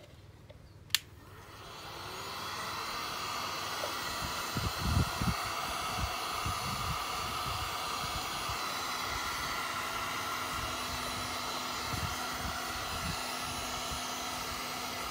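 Handheld heat gun switched on with a sharp click about a second in, its fan spinning up within a second and then blowing steadily as it heats a plastic jug. A few soft low knocks come through under the blowing.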